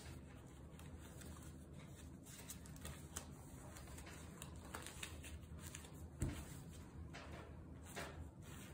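Faint rustling of a cotton shirt handled by gloved hands while a rubber band is stretched and wound around the bundled fabric, with small scattered clicks. One soft thump about six seconds in.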